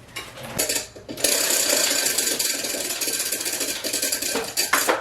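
Spinning prize wheel clicking rapidly as its pointer runs over the pegs, for about three seconds before it stops.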